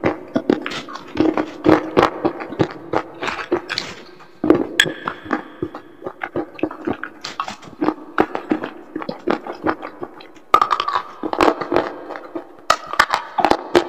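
Close-up chewing of slate pencil pieces coated in wet paste: dense, crisp crunching and crackling with many sharp cracks. Near the end, bites into a whole dry slate pencil stick give louder, sharper snaps.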